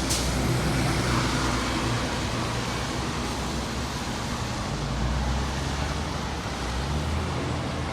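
2006 Orion V diesel bus engine running with a steady low drone under road noise. The drone is stronger for the first couple of seconds, eases, then swells again about five seconds in. There is a brief sharp click right at the start.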